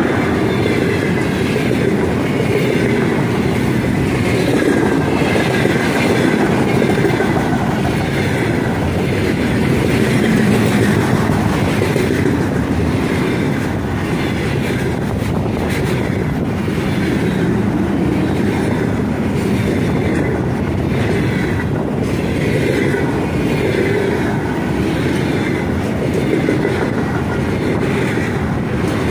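Container freight train running past at close range: a steady loud rumble of steel wheels on the rails, with a repeating beat as the wagons' wheelsets roll by.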